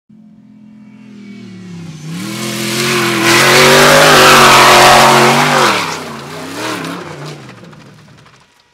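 Ultra4 off-road race car's engine running hard as the car comes in, passes loud through loose dirt with a rush of spraying dirt and tyre noise, then fades away. The engine pitch dips and climbs again a couple of times with the throttle.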